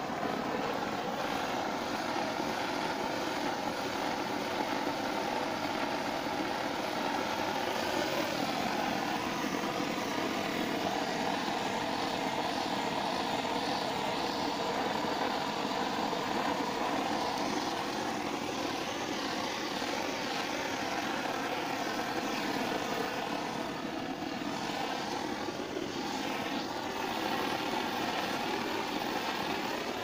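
Brass gas blowtorch burning steadily as its flame is played over the heat-shrink parts of an 11 kV XLPE cable termination to shrink them on.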